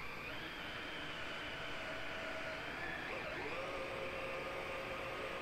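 Electric motor and drivetrain of a Vanquish VS4-10 RC rock crawler whining over a steady hiss; the whine dips and then rises to a higher steady pitch about three seconds in, as the throttle changes.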